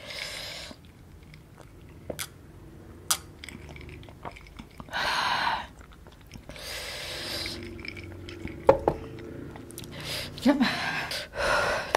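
Close-miked mouth sounds from a person eating ghost pepper noodles: chewing and sharp lip and tongue clicks. Several loud breaths out through the mouth, each under a second, come about five, seven and eleven seconds in, the kind of breathing that chili heat brings on.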